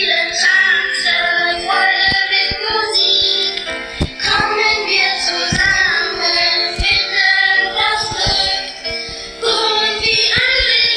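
A Medion phone ringtone playing: electronic music with a sung or voice-like melody over percussion hits.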